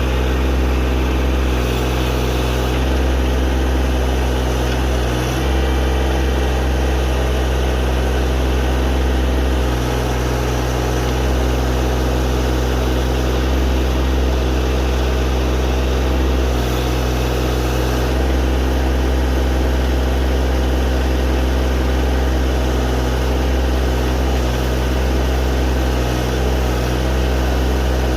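Tractor engine running steadily as it works a backhoe, its note shifting slightly now and then.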